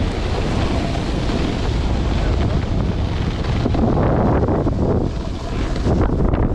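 Strong wind rushing over the microphone of a camera riding down a snowboard run, mixed with the hiss of the board sliding over snow.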